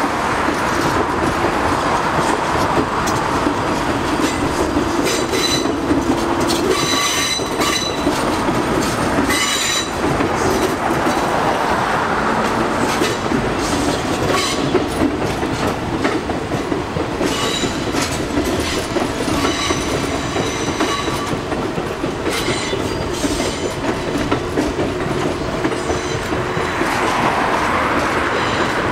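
R179 subway train running past on a curving elevated viaduct: a steady rumble of wheels on rail with clickety-clack over the joints. A high thin wheel squeal comes and goes twice. A car passes on the road near the end.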